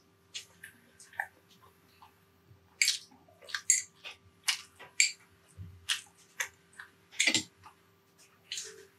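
Close-up mouth sounds of a person eating: irregular smacks and chewing clicks, about two a second, over a faint steady hum.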